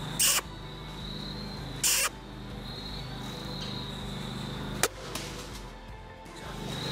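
Insects in the woods buzzing in a steady high-pitched drone over a low hum, broken by two short hissing bursts in the first two seconds and a single sharp click about five seconds in.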